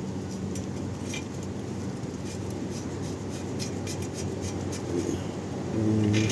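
Light metallic clicks and scraping as the hub's mounting bolts are threaded in by hand, over a steady low hum. A short, louder low hum comes near the end.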